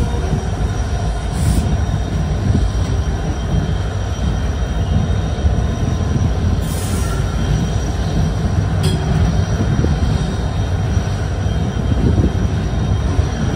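Passenger coaches of a passing express train rolling by close alongside: a steady, loud rumble and rattle of wheels on rail, with a thin high tone running through it and a sharp click about nine seconds in.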